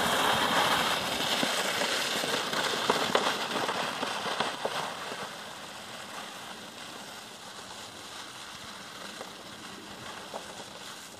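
Plastic sleds sliding over crusty snow: a scratchy hiss with small crackles that fades over about six seconds as the sleds run away downhill, leaving a faint steady hiss.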